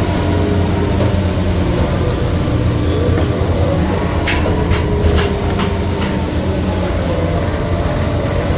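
Steady low drone of a fishing boat's engine and deck machinery, with four sharp clicks or knocks a little past halfway through.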